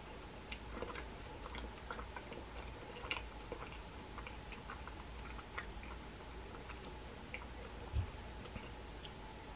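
Faint chewing of a soft macaron, a scatter of small mouth clicks and smacks over a steady low hum, with a dull thump about eight seconds in.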